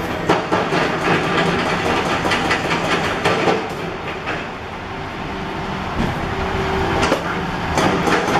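Heavy vehicle noise: engines running under a constant rumble, with frequent clicks and clattering knocks, dipping a little in the middle.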